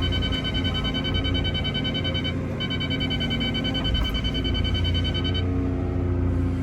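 Excavator running at work: a low engine drone with a steady high-pitched whine over it that drops out briefly about two and a half seconds in and stops about five and a half seconds in.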